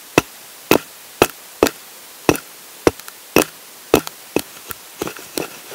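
A dull axe blade pressed along the side of a pine log, knocking and skipping against the wood in about a dozen short, sharp clicks, roughly two a second. The blunt edge cannot bite into the wood to shave it.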